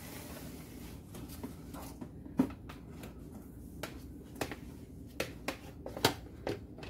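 Light scattered clicks and knocks of small kitchen items being handled and set down on a granite countertop, with two sharper knocks, one about two and a half seconds in and one about six seconds in.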